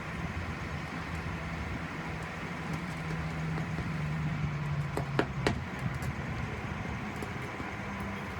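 A large vehicle engine running steadily, with three sharp knocks a little past halfway.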